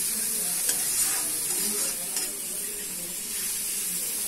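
Chopped onions sizzling in butter and oil in a metal kadhai, stirred with a steel spatula that scrapes the pan now and then. A steady frying hiss as the onions cook toward light golden.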